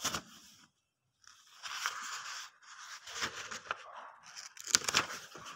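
Rustling and crackling handling noise, with a short click at the start; the rustling begins a little over a second in and peaks in a louder flurry of crackles near the end.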